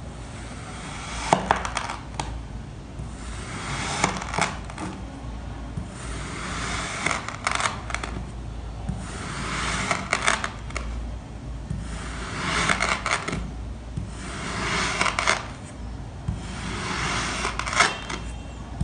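Kinetic sand being cut, a series of gritty slicing strokes every two to three seconds, each with sharp clicks.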